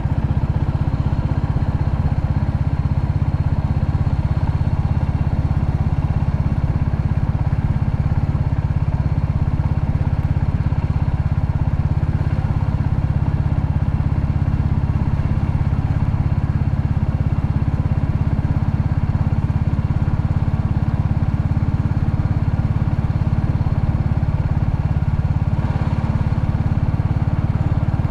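Royal Enfield Classic 350's single-cylinder engine running steadily under way, with no revving up or down.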